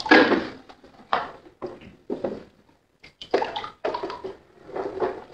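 Shallow water splashing and sloshing as toy trucks are pushed through it, in a series of short, uneven splashes.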